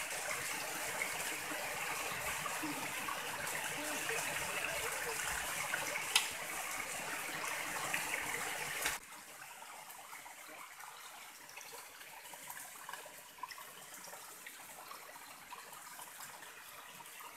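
Shallow rocky forest stream running and trickling over stones, a steady rush of water. About nine seconds in it cuts abruptly to a quieter trickle with a few faint clicks.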